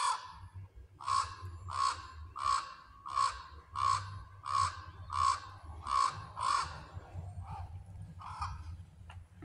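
A parent raven giving a long string of short calls, about a dozen, evenly spaced at roughly three every two seconds, growing fainter near the end. The watcher wonders if she is calling her mate.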